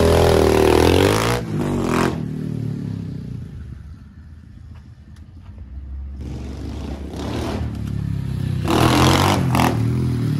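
SSR 125 pit bike's single-cylinder four-stroke engine revving as the bike pulls away, fading as it rides off, then growing louder again as it comes back and revs near the end. It runs and revs cleanly on its freshly cleaned carburetor.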